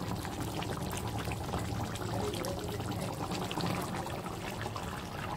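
Chicken curry gravy simmering in a kadai: steady bubbling with many small pops and sputters.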